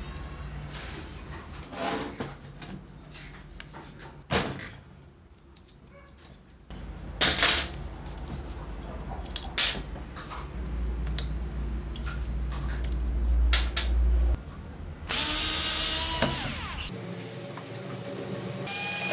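Hand tools working on the metal housing of an old Hitachi rotary hammer drill motor as its carbon brush caps are unscrewed and the brushes are pulled out. There are scattered clicks and clinks of metal on metal, two sharp loud knocks around a third of the way in, and a harsh rasping noise lasting about two seconds near the end.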